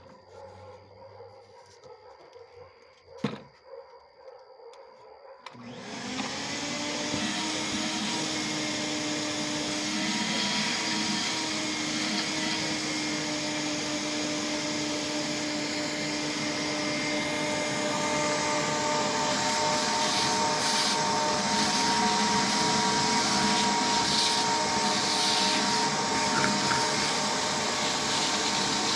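Ridgid 4-gallon, 5 HP wet/dry shop vacuum switched on about six seconds in, spinning up and then running steadily with a steady whine. It is freshly serviced and working properly. A single sharp click comes about three seconds in, before it starts.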